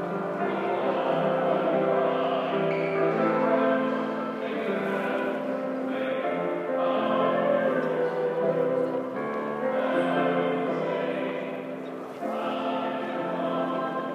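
A choir singing: many voices holding long notes in phrases a few seconds long, dipping briefly near the end.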